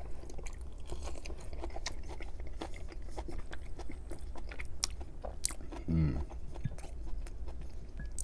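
Close-miked mukbang eating: biting and chewing a crispy pan-fried pierogi and a pickled pepperoncini, with many small wet mouth clicks. There is a brief hummed vocal sound about six seconds in.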